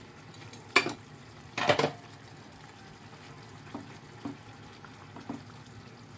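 Fish gravy bubbling gently in a pan. Two sharp clatters come about one and two seconds in, then a few light taps of a plastic spatula against the pan.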